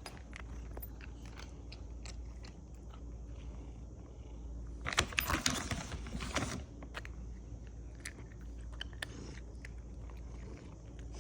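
Maine Coon cat crunching dry treats: scattered small crunches, with a louder run of crunching about five seconds in that lasts a second and a half.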